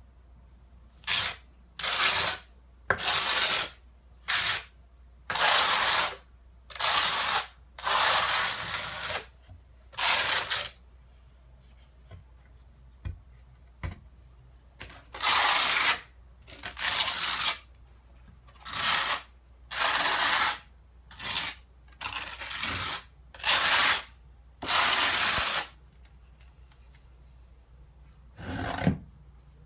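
A notched trowel scraping and spreading tile mortar, about seventeen uneven strokes with short pauses between: back-buttering a ceramic tile.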